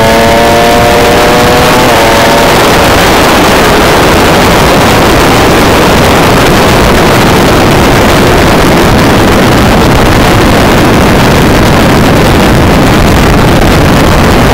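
A 600cc sport bike engine revving high, heard from an onboard camera. Its note changes pitch sharply twice in the first couple of seconds as gears change, then loud wind rush on the microphone mostly buries it. The sound cuts off suddenly at the end.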